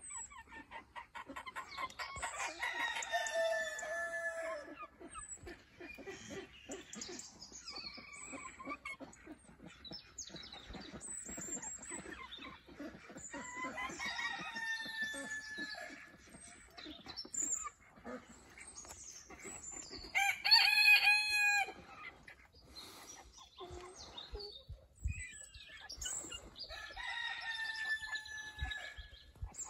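Black Rosecomb bantam roosters crowing three times, each crow about two to three seconds long and falling in pitch, with a shorter, louder call about twenty seconds in and softer clucking between.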